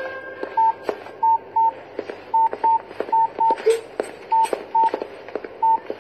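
Mobile phone keypad beeping as its buttons are pressed: short beeps, all on the same pitch, at an uneven pace, with faint clicks between them.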